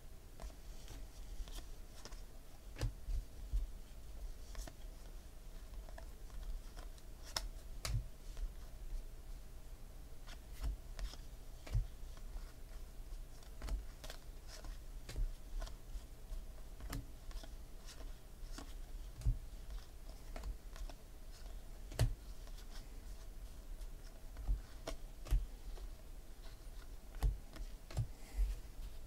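Baseball trading cards being slid off a hand-held stack and dropped onto piles on a table: irregular soft clicks and taps, about one or two a second, over a low steady hum.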